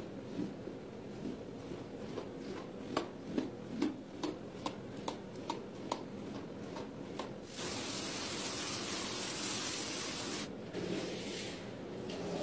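A rug in soapy foam being scrubbed with a broom: a run of sharp strokes about two a second, then a steady hiss from about seven and a half seconds in that breaks off briefly near the end.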